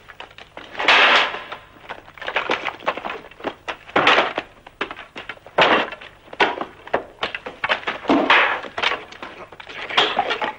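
Fight-scene sounds of a brawl: a run of thuds and knocks from blows and scuffling bodies, with a loud burst about every two seconds.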